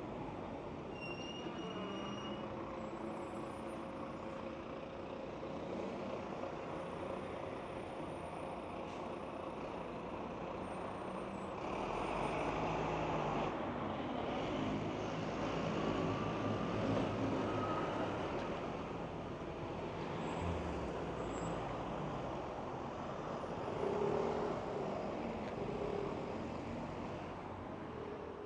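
Road traffic with heavy vehicles running and passing, with short engine and brake whines coming and going. It is louder in the second half and cuts off suddenly at the end.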